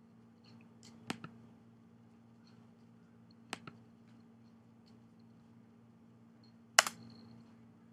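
Three sharp clicks of a computer mouse button, about a second in, halfway through and near the end, each with a quick second click right after it; the last is the loudest. A faint steady low hum runs underneath.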